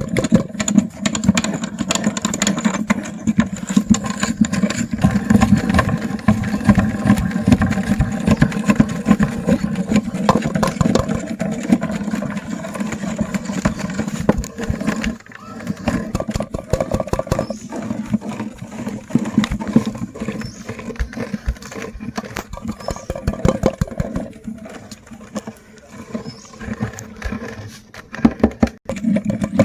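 Electric meat grinder running with a steady motor hum, with dense crackling and crunching as candy is ground through it.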